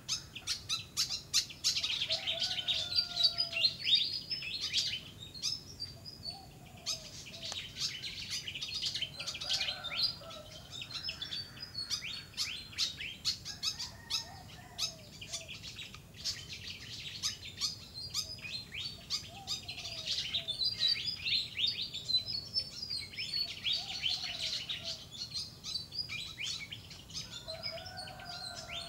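Many small birds chirping in dense, high-pitched bursts that swell and fade in waves, with a lower, short, falling call from another bird repeating every few seconds.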